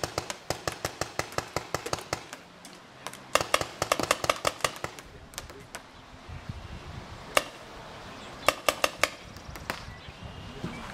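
Paintball markers firing rapid strings of sharp pops, several shots a second: a long string at the start, another from about three to five seconds in, then scattered single shots and a short cluster about nine seconds in.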